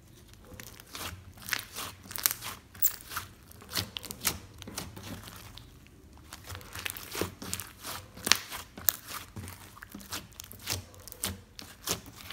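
Hands squishing and stretching a soft white slime dotted with small coloured beads, giving a quick, irregular run of sticky pops and crackles, with a short pause about six seconds in.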